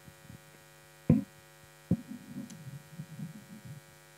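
Steady electrical mains hum in the sound system, with a dull thump about a second in, a sharper knock shortly after, and faint low shuffling sounds.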